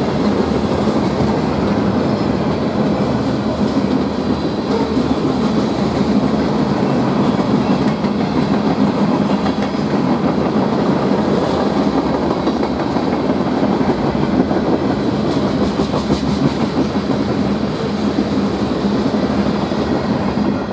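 Freight train cars rolling past at speed: a steady rumble of steel wheels on the rails.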